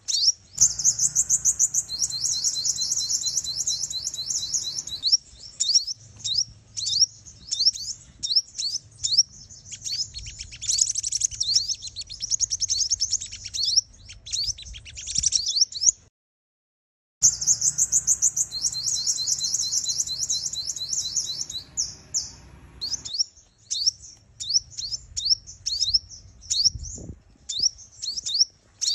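Female sunbird calling: rapid high-pitched trills and sharp chirps in quick runs. There is a silent gap of about a second roughly sixteen seconds in, after which the same sequence starts over as the recording loops.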